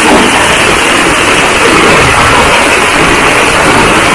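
Heavy rain pouring down: a loud, steady hiss of downpour.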